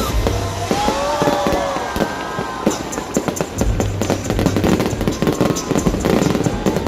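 Fireworks going off in a rapid, dense run of pops and crackles, with music playing underneath.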